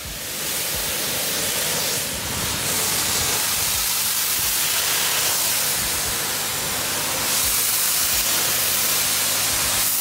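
High-pressure car-wash wand spraying water onto a pickup truck's painted steel bed and fender: a steady, loud hiss of the jet, stepping up a little about seven seconds in.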